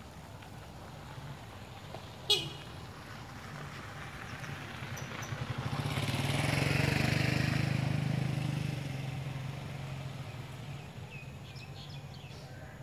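A motor vehicle passing by: a low engine hum with road noise that swells over a few seconds, peaks in the middle and fades away. About two seconds in there is one brief, sharp, high squeak.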